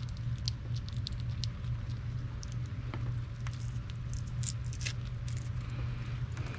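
Small scattered crackles and ticks of adhesive tape being peeled off a coiled antenna cable and the cable being handled, over a steady low hum.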